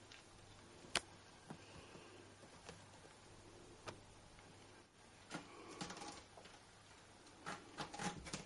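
Faint scrabbling and rustling of kittens' claws on a carpeted cat tree as they play, with a few sharp clicks, the loudest about a second in, and two bursts of scratching in the second half.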